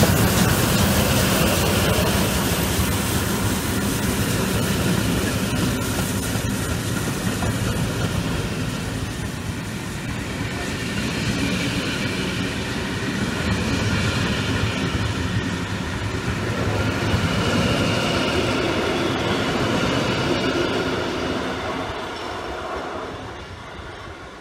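Class 01 express steam locomotive 01 202 running past with its passenger train, the coaches' wheels rolling over the rails. The sound fades as the train pulls away near the end.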